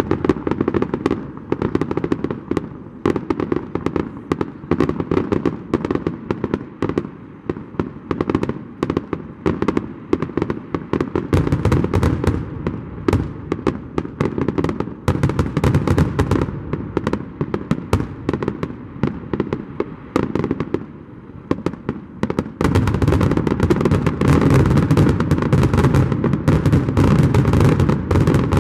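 Fireworks display finale: aerial shells bursting one after another in quick succession, with the bangs growing into a dense, near-continuous barrage about three-quarters of the way in.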